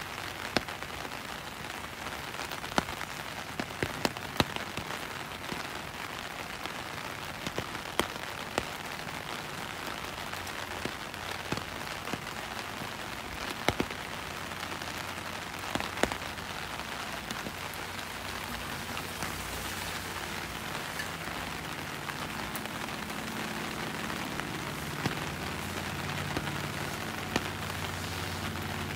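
Steady rain falling, with single drops striking sharply every few seconds. A low hum builds up under the rain in the last several seconds.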